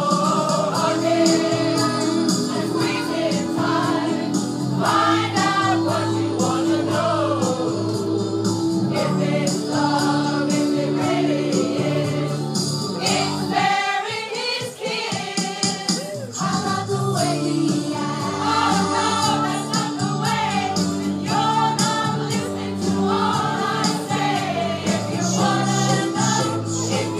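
A community choir of mostly women's voices singing a song together.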